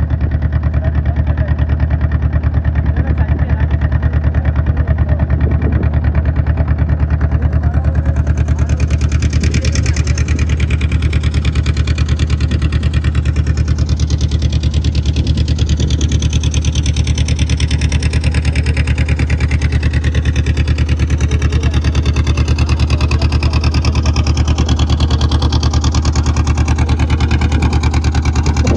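Motorboat engine running steadily at a constant speed, a loud, even low drone.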